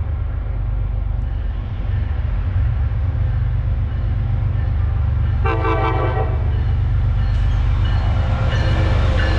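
A train approaches with a low rumble that grows louder, and sounds its horn once for about a second midway.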